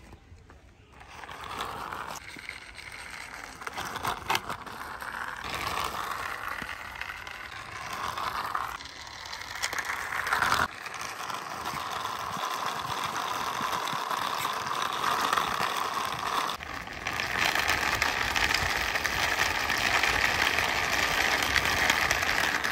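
Plastic toy steam locomotive pushed by hand along a rough concrete wall, its wheels and gears whirring and rattling. The whir swells and dips with the pushes, with a few sharp clicks, and is loudest over the last few seconds.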